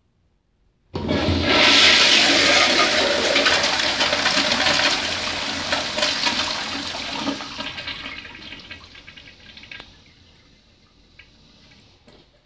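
1991 Crane Plumbing toilet flushing on its flush valve: a sudden rush of water about a second in, loud for several seconds, then tapering off to a faint trickle from about ten seconds in.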